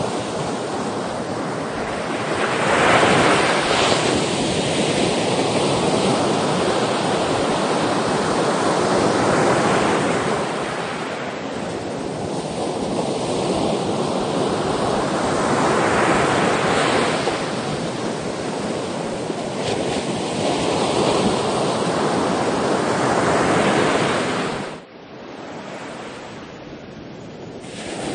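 Sea waves breaking and washing on the shore, each surge swelling and ebbing every several seconds. Near the end the sound drops suddenly to a quieter wash, then comes back up.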